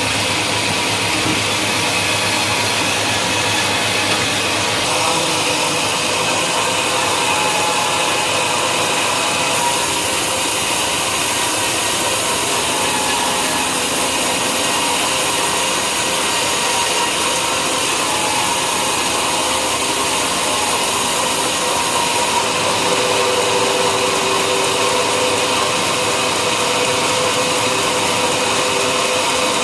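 Sawmill running steadily, its saw cutting wadang timber.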